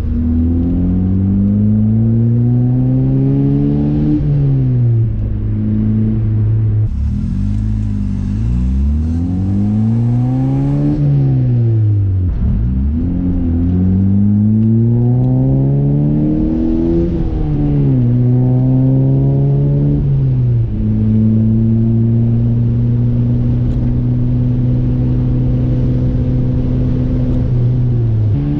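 Honda Civic Si's 2.4-litre four-cylinder through an Invidia N1 cat-back and Magnaflow mid-pipe, heard inside the cabin. The revs climb and fall several times, dropping suddenly at gear changes, then hold steady at cruise for most of the second half and pick up again at the very end. The owner suspects an exhaust leak.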